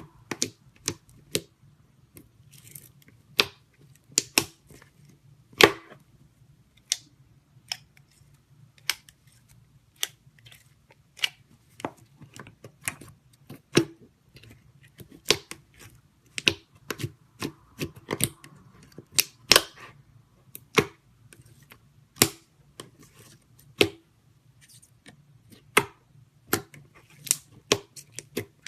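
Slime being pressed and stretched by hand, with trapped air pockets popping in sharp, irregular clicks, one to three a second, over a faint steady low hum.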